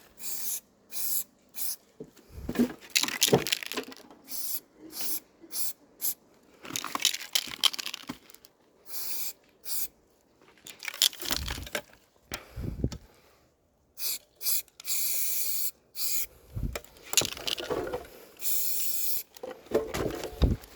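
Aerosol spray-paint can hissing in many short bursts, with a couple of longer steady sprays near the end, mixed with scraping and handling knocks.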